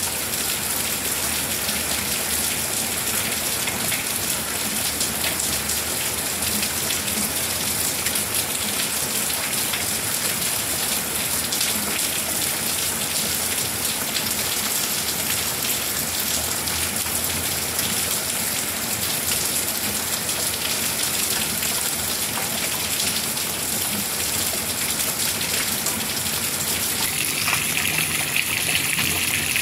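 Steady rain falling, an even hiss of many drops. Near the end the sound turns brighter and slightly louder.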